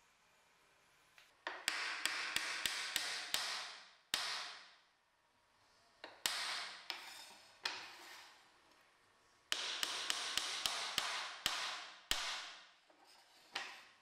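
Wooden mallet tapping wooden dowel pins into the slats of a folding rack, in quick runs of light strikes with pauses between. Each strike rings briefly.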